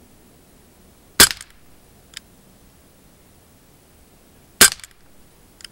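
Gamo PT-85 Socom CO2 blowback air pistol firing two shots about three and a half seconds apart, each a sharp crack with a brief tail. A faint click follows about a second after each shot.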